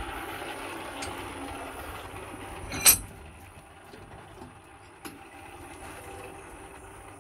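Sharp metallic clank about three seconds in as a red-hot iron bar held in blacksmith's tongs is set into a vise, with a few lighter metal clicks after it. A steady rushing background noise drops away after the clank.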